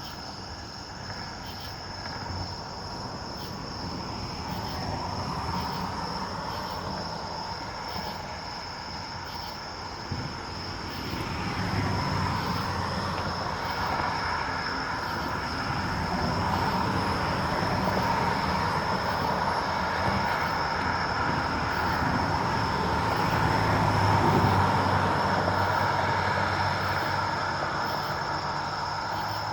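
A distant vehicle rumble that slowly swells over about ten seconds, loudest about three-quarters of the way through, then eases off, over a steady high chirring of night insects.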